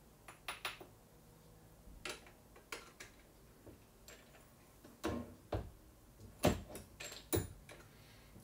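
Scattered metallic clicks and knocks of .338 Lapua brass cases being handled at a single-stage reloading press: the case is set into the shell holder, run up into the neck-sizing die and taken out. The loudest knocks come in the second half.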